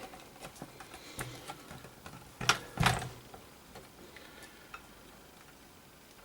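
Small clicks and taps of computer parts being handled and taken off, with two louder knocks about two and a half seconds in.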